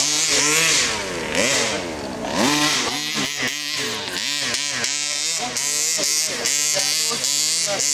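Small combustion engine of a radio-controlled car, loud, revved up and down over and over. Its pitch rises and falls in slow sweeps at first, then in quick throttle blips a couple of times a second.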